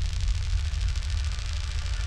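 Dark electronic sound-design texture from a dystopian sample pack: a fluttering static-like noise layer over a deep low rumble, slowly fading.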